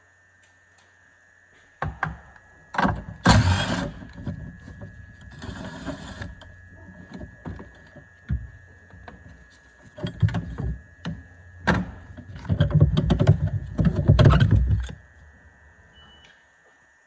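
A string of metallic knocks and clanks from hand tools and hardware being worked. There are bursts of rattling about three seconds in and again over the last few seconds, and a short hiss around the middle.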